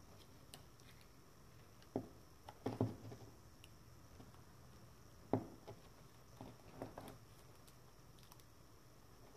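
Faint handling sounds of a wiring harness: a few scattered soft clicks and taps as a multimeter probe is pushed against the pins of a plastic ECU connector and the bundled wires are shifted by hand.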